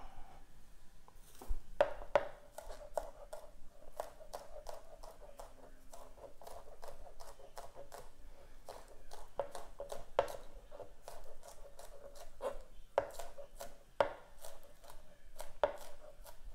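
Chef's knife chopping green onions on a plastic cutting board: a run of sharp, irregular taps as the blade strikes the board.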